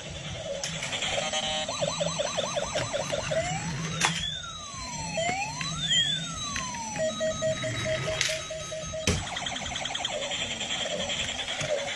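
A string of electronic siren sounds of the kind a toy police car or sound-effect track makes. A fast warble comes first, then sweeping rising and falling wails, then a run of quick even beeps about two-thirds of the way through, with a few sharp clicks along the way.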